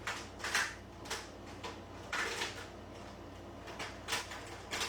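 Craft supplies being handled on a work table: a handful of short, separate rustles and clicks spread over a few seconds.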